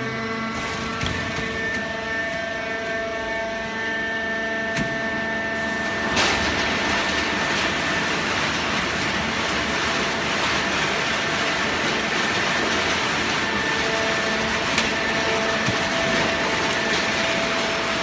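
Hydraulic baler running, its power unit holding a steady whine; about six seconds in a louder rushing noise joins it and carries on.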